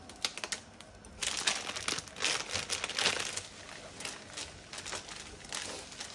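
Crinkling and rustling of a plastic wrapper and disposable plastic gloves as a piece of leftover cheese is unwrapped and crumbled by hand into a bowl: irregular crackles, sparse at first and much busier from about a second in.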